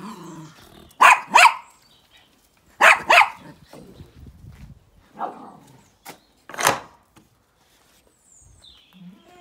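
Small dog barking repeatedly, short sharp barks that mostly come in quick pairs.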